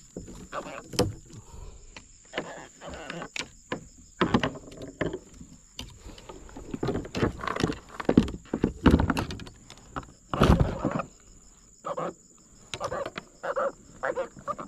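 Irregular knocks, clicks and rattles of handling on a plastic kayak deck, as fishing pliers are picked up and a caught fish is gripped for unhooking; the loudest thump comes about ten and a half seconds in.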